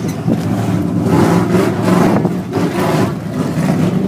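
Dirt-track stock car engines running at racing speed, a loud, steady mix of several engine notes.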